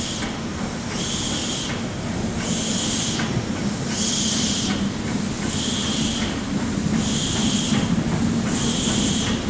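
Steam locomotive working slowly, a regular beat of hissing exhaust chuffs a little more than once a second over a low steady rumble of the train.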